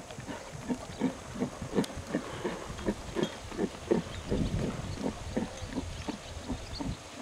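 Horse cantering on a sand arena: a steady rhythm of dull hoofbeats, about three a second.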